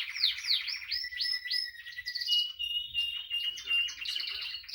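Female Timbrado canary singing: a quick run of downward-sweeping notes, then a steady high held note, then a burst of rapid notes near the end.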